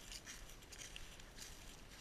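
Footsteps crunching through dry fallen oak leaves, faint, as a series of irregular soft rustling crunches.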